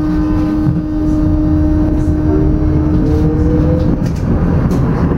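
Electric tram pulling away from a stop: a low rumble of the running gear with a steady electrical hum that cuts off about four seconds in, and the whine of the motors rising briefly just before.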